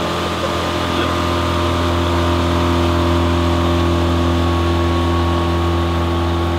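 Outboard motor on a small fishing boat running steadily at cruising speed, a constant hum that holds one pitch.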